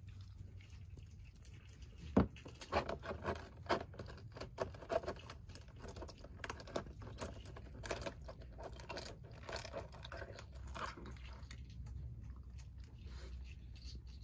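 Raccoon biting at a duck egg's shell: a run of sharp cracks and crunches, the loudest about two seconds in, thinning out after about eleven seconds.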